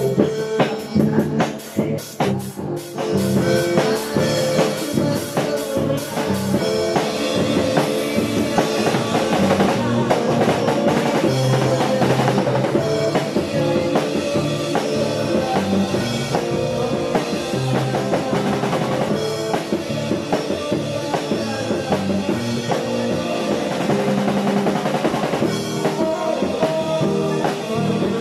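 Acoustic drum kit played with cymbal strikes along with a recorded song. The first few seconds are a quick run of drum hits, then the song's instruments come back in under a steady beat.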